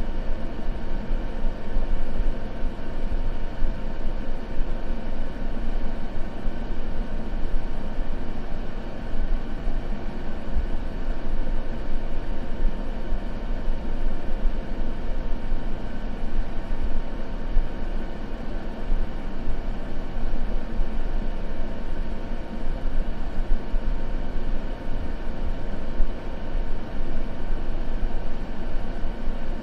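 Continuous steady noise used for sleep masking, deep and rumbling rather than hissy, with faint steady hum tones running through it and no crackles or changes.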